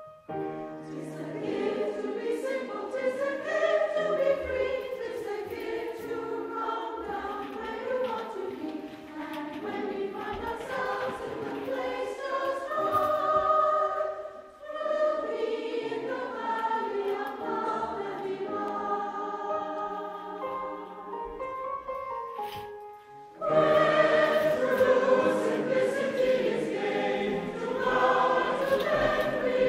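Background music: a choir singing held notes, growing fuller and louder about two-thirds of the way in.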